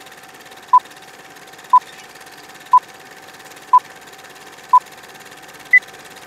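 Film-leader countdown sound effect: short beeps exactly a second apart over a steady hiss with a faint hum. After five beeps of the same pitch, the last beep near the end is higher.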